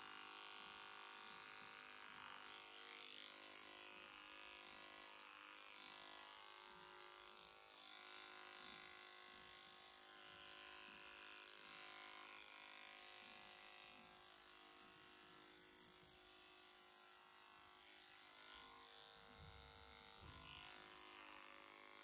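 Oster PowerPro cordless horse clipper running with a faint, steady buzz as it clips the short hair on a horse's muzzle and jaw.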